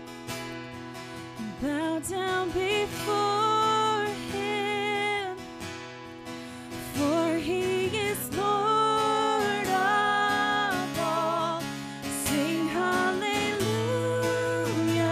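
Live worship song: a woman singing lead with vibrato and a man singing along, over a strummed acoustic guitar.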